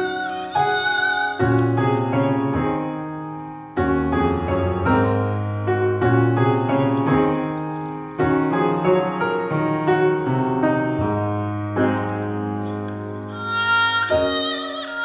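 Haegeum (Korean two-string bowed fiddle) and grand piano playing a duet. Struck piano chords over deep bass notes carry most of the stretch, and the haegeum's bowed line with vibrato comes back in strongly near the end.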